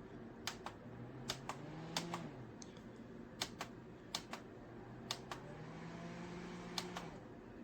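Plastic push-buttons on a Bell+Howell Aqua Air misting fan clicking, in quick press-and-release pairs about seven times, over a faint low hum.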